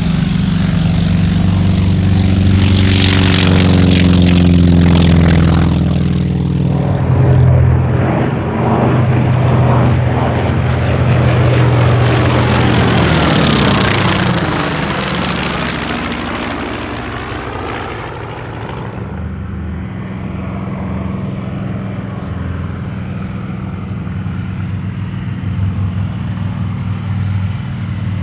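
North American T-28B Trojan's Wright R-1820 nine-cylinder radial engine and propeller running at high power. About 13 s in the aircraft passes, at its loudest, with the engine note dropping in pitch as it goes by. In the last third it runs quieter and steadier as it comes in low to land.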